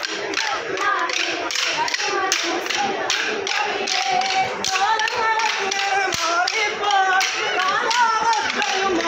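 Kolkali dancers striking short wooden sticks together, a steady rhythm of sharp clacks about two to three a second, with a group singing the accompanying song.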